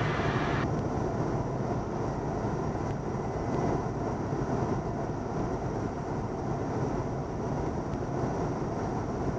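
Cockpit noise of a 1977 Cessna 172N in flight on final approach: its four-cylinder Lycoming engine and propeller running steadily, with rushing air.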